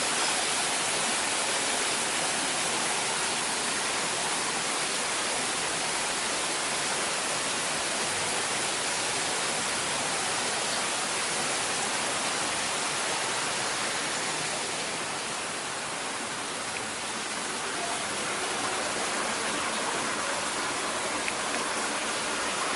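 Steady rushing hiss of falling water, easing slightly about fifteen seconds in.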